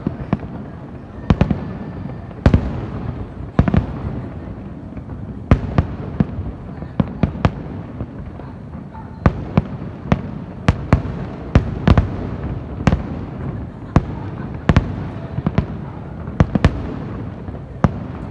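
Aerial fireworks bursting in an irregular barrage: sharp bangs come one to several times a second, sometimes in quick clusters, over a continuous low rumble.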